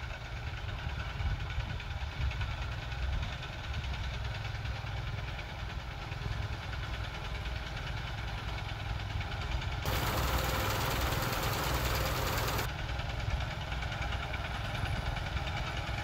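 Engine of a home-rebuilt rice harvester running steadily with a low rumble. About ten seconds in, a loud rushing hiss cuts in abruptly, lasts nearly three seconds and cuts off just as suddenly.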